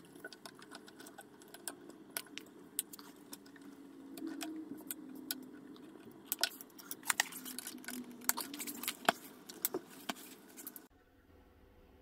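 Scattered sharp clicks and light rattles of cable ties being handled and trimmed on a kids' bike frame, with a few louder snaps in the middle. The sound cuts off abruptly about a second before the end.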